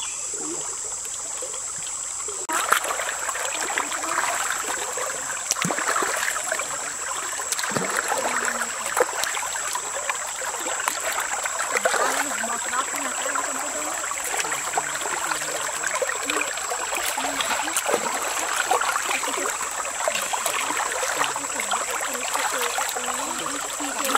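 Shallow stream running, with irregular splashing and trickling as hands work in the water washing fish; the splashing starts about two and a half seconds in.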